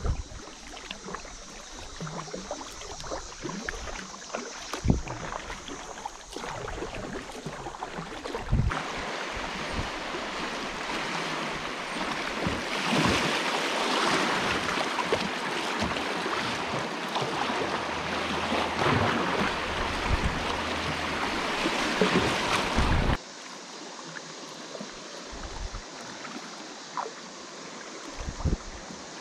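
Kayak paddling on a river: quiet paddle splashes and small knocks, then about nine seconds in the steady rush of water through a shallow riffle, which cuts off abruptly about 23 seconds in, leaving calm water with a few soft paddle splashes.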